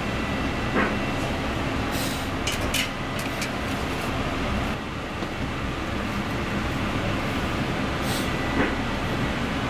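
Steady mechanical rumble and hiss of machinery, with a couple of light clinks about a second in and near the end.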